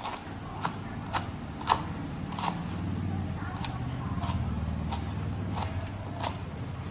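A kitchen knife knocking on a wooden chopping block as lemongrass is sliced into thin strips, about one knock every half second or so. A low steady hum rises underneath in the middle.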